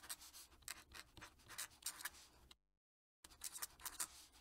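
Fountain pen nib scratching over paper in quick irregular strokes as a signature is written. It stops dead for about half a second around two and a half seconds in, then goes on.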